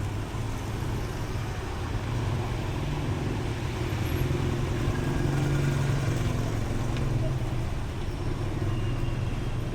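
A motor vehicle's engine running close by with a low steady hum, growing louder toward the middle and easing off again near the end, like a vehicle passing slowly.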